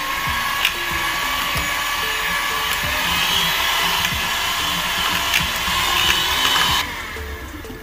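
Electric hand mixer running, its beaters whirring through thick sponge-cake batter of eggs, sugar and flour. The motor whine climbs in pitch about three seconds in as it is turned up toward high speed, then stops abruptly near the end.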